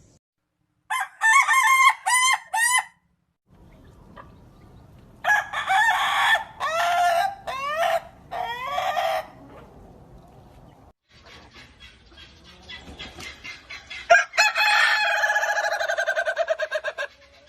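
Roosters crowing, three separate crows. A short multi-note crow comes about a second in, a longer crow of several notes around the middle, and a long drawn-out final crow with a fast warble near the end.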